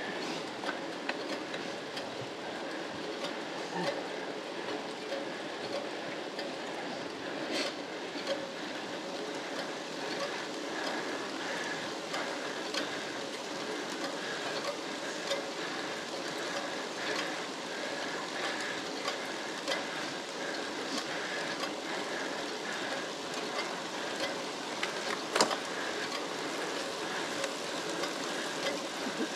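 Road bicycles labouring up a very steep grade at walking pace: a steady whir of chains and tyres on asphalt, with scattered light clicks and one sharper click near the end.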